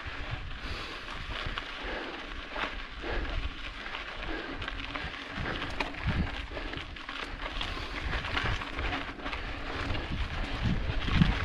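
Mountain bike tyres crunching and crackling over a rough, rocky dirt trail, with scattered clicks and rattles from the bike and uneven low rumbling of wind on the microphone.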